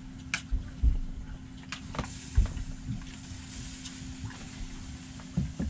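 A boat's motor humming steadily, with a few short knocks and thumps.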